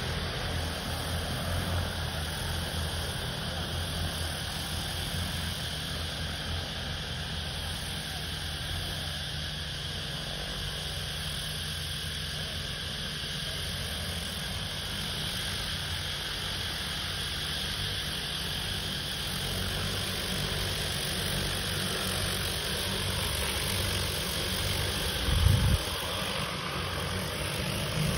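Multirotor crop-spraying drone's rotors droning steadily as it flies over the field, with wind rumbling on the microphone. A brief thump near the end.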